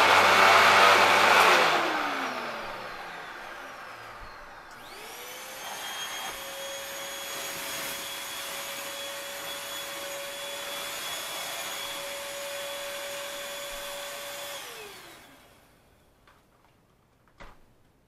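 A Hoover WindTunnel upright vacuum running, switched off about a second and a half in and spinning down. About five seconds in a Bissell Featherweight stick vacuum is switched on: its motor whine rises to a steady high pitch, runs for about ten seconds, then falls away as it is switched off. A single light knock comes near the end.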